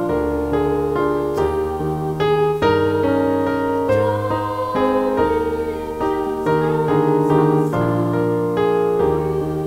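Electric piano playing the opening hymn in sustained block chords, the chords changing about every half second to a second.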